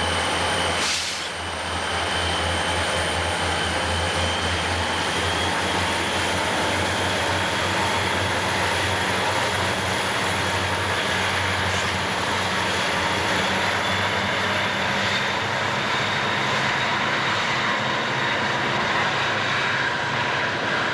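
EMD diesel locomotives hauling a freight train past, with engines running in a steady drone under a high whine and freight cars rolling on the rails. The sound breaks briefly about a second in.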